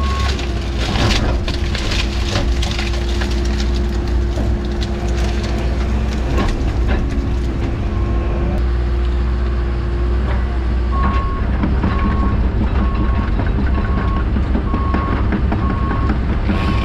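Tracked excavator's diesel engine and hydraulics working under load, heard from inside the cab, with a steady whine over the first ten seconds and scattered cracks of breaking brush and wood. In the last third a beeping alarm sounds at a steady pace, under two beeps a second.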